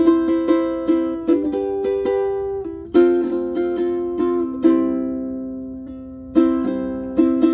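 aNueNue Green Bird ukulele strung with low G strings, played as a run of plucked single notes and chords. Two chords are left to ring out in the middle before the picking picks up again.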